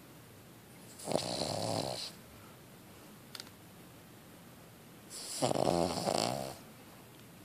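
Cavalier King Charles Spaniel snoring: two snores, one about a second in and another about five seconds in, each lasting about a second with a fluttering rattle.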